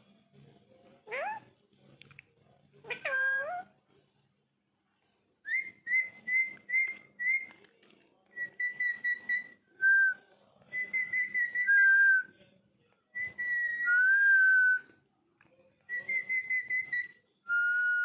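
Indian ringneck parakeet whistling: a few rising calls, then a long run of whistled phrases made of short notes repeated quickly on one pitch, broken by some held, slightly lower notes.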